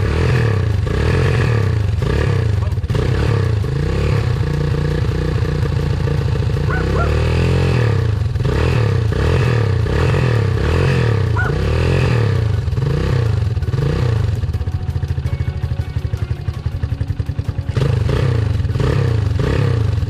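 Honda XR200R's single-cylinder four-stroke engine revved in quick repeated throttle blips, about one every second, easing to a lumpy idle for a few seconds in the latter half before the blipping resumes. It is the bike's first run after a restoration, and it does not yet idle well: its carburettor needs work.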